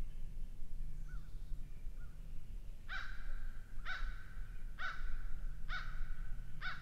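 A bird calling five times, about a second apart, starting about three seconds in, with a couple of faint short calls before it, over a low steady rumble.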